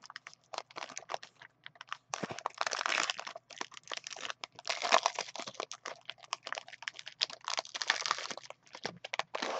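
Foil wrapper of a 2014-15 Upper Deck Premier hockey card pack crinkling and crackling as hands tear it open and crumple it back from the cards. The crackling comes in irregular spurts with short pauses.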